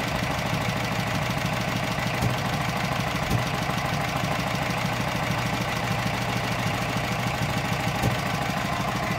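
Norman T300 stationary engine running steadily at idle with a fast, even beat, with a few louder single knocks.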